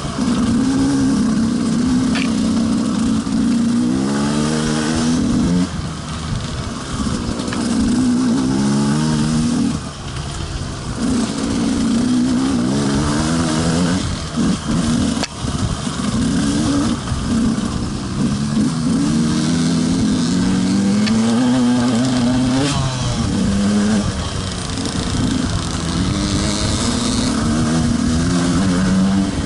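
Enduro dirt bike engine under way, revving up again and again. Its pitch climbs then drops off as the rider shifts and rolls off the throttle.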